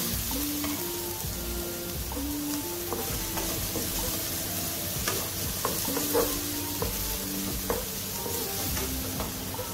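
Chopped onion and green chillies sizzling as they sauté in a nonstick pan. A wooden spatula stirs them, with scattered scrapes and taps against the pan.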